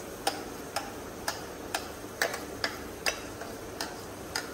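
Stainless steel Sujata mixer-grinder jar knocked repeatedly to shake ground coconut chutney out into a plastic bowl: sharp taps about twice a second.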